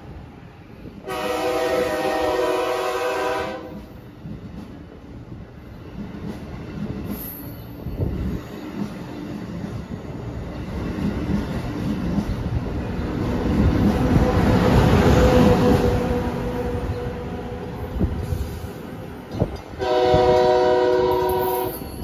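Amtrak electric passenger train passing a station platform. Its multi-tone horn sounds a long blast about a second in, the rush of wheels and cars swells to its loudest around the middle, and a second long horn blast comes near the end.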